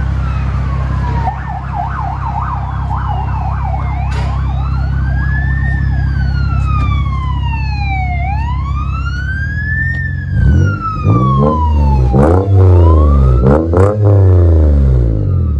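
Exhaust note of a Lexus IS 350's 3.5-litre V6 through a true-dual Flowmaster Flow FX system, idling steadily while a siren wails and briefly yelps. About ten seconds in, the engine is blipped in five or six quick, loud revs.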